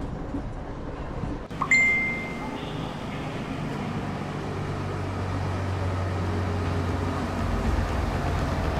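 A phone message alert tone: a single short, bright ping about two seconds in. A low steady hum slowly grows louder after it.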